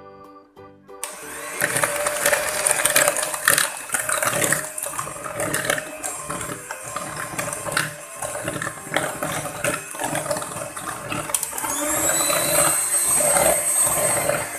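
Maspion electric hand mixer switched on about a second in, its beaters whisking eggs, sugar and emulsifier in a bowl, with frequent clicks and rattles. Near the end a high motor whine rises slightly and then holds steady. Before the mixer starts there is a second of background music.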